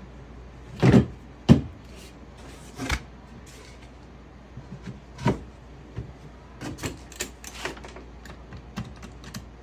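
Knocks and taps of boards and tools being handled on a workbench. Two sharp knocks come about a second in, a few more follow, then a run of lighter taps and clicks.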